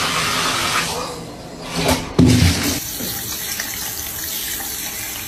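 Water running from a bathtub faucet as a steady hiss that eases off after about a second. Just after two seconds in there is a brief loud voice, then a quieter steady hiss.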